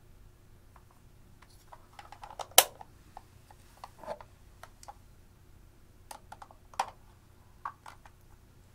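Scattered sharp clicks and taps of a hard plastic toy makeup palette case being handled, with the loudest click about two and a half seconds in and another near seven seconds.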